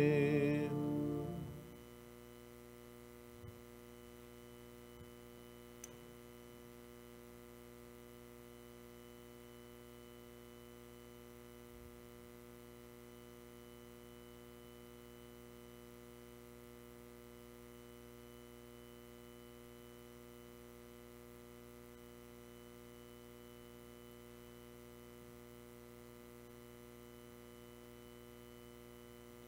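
Sung last word of a hymn, ending about a second and a half in. Then a steady electrical mains hum from the recording chain, with a few faint clicks early on.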